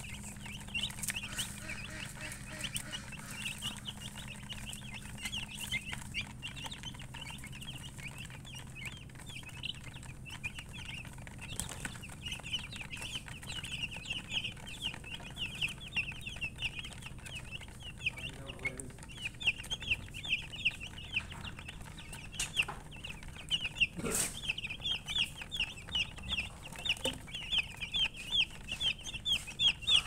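A flock of young chicks peeping, many short high chirps overlapping without a break, growing louder and busier in the second half.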